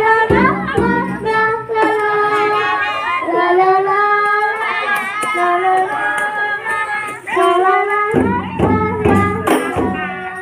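A girl singing an Islamic devotional song into a microphone, the melody sustained and ornamented, with rebana frame drums joining in a quick run of strokes near the start and again near the end.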